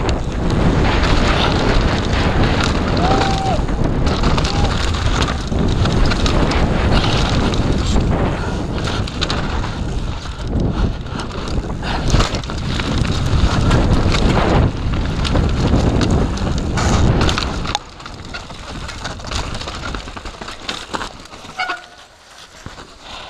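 Mountain bike ridden fast down a dirt trail: wind buffeting the camera microphone over the tyres and the rattle and knocks of the bike on rough ground. About 18 seconds in the bike comes to a stop and the noise falls away to quieter scuffs and handling sounds.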